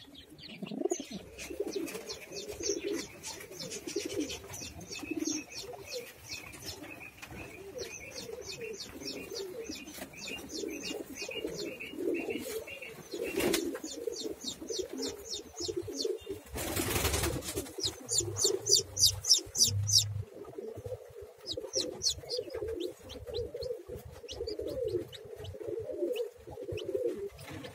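Pigeons cooing in a steady, low, warbling chorus, with runs of rapid, high chirps over it. A brief whoosh of noise comes about two-thirds of the way through.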